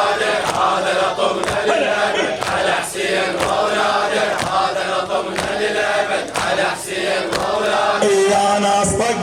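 Group of men chanting a latmiya lament refrain together, with rhythmic chest-beating (latm) striking about twice a second.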